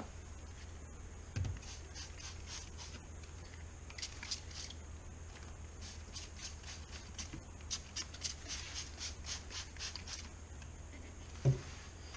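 Hand trigger spray bottle misting the vivarium's leaf litter and plants, a run of short hissy spritzes, about two a second, in the middle stretch, to get everything soaking. A soft knock early on and a louder thump near the end.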